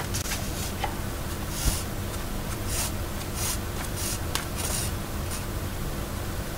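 Thread being drawn through the sewing holes of a stack of paper sheets while hand-binding a book, making a series of short rasping swishes against the paper, with a couple of light knocks as the sheets are handled.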